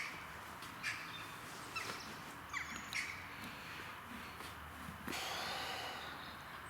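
A horse blowing out a snort through its nostrils about five seconds in, with birds giving a few short calls earlier on.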